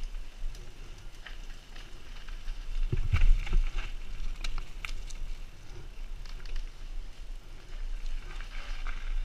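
Mountain bike riding down a dirt forest trail: wind rushing over the microphone, tyres on dirt and rattling clicks from the bike, with a heavy thump and clatter about three seconds in as it takes a bump.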